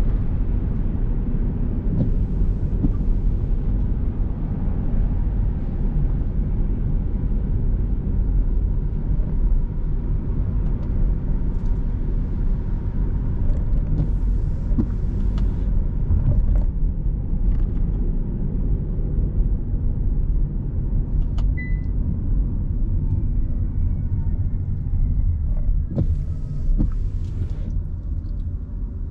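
Car driving on a wet road, heard from inside: a steady low rumble of engine and tyre noise, with a faint whine falling in pitch in the second half.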